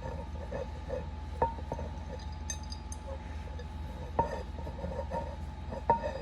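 Light metallic clinks and taps of a screw being turned in by hand to fasten a projector-stand part, with three sharper clicks that ring briefly, over a steady low hum.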